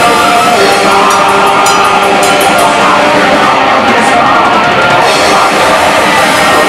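Black metal band playing live and loud, with distorted electric guitars and a drum kit with cymbal strikes.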